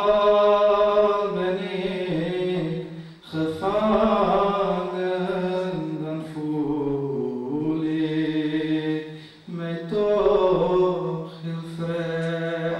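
A man reciting a naat, a devotional poem in praise of the Prophet, solo and unaccompanied into a microphone. He sings long, drawn-out held notes in three phrases, with short breaks a little after three seconds and at about nine and a half seconds.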